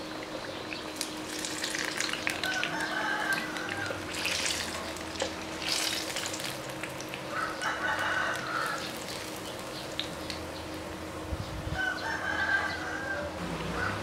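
Batter-coated bananas deep-frying in a pan of oil, a steady sizzle with fine crackles and pops as chopsticks turn them. A bird calls a few times in the background.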